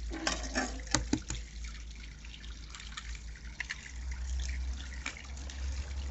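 Eggs cracked against the rim of a plastic bowl, a cluster of sharp clicks and taps about a second in, with a few lighter taps later. Water trickles steadily from a garden pond fountain throughout.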